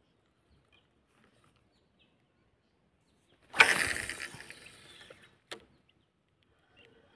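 A cast with a spinning rod: a sudden swish and the line hissing off the spinning reel's spool, fading over about a second and a half. A single short sharp click follows.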